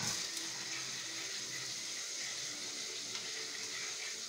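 A block of butter sizzling steadily as it melts in a hot nonstick wok, a hiss like running water that starts sharply as the butter goes in.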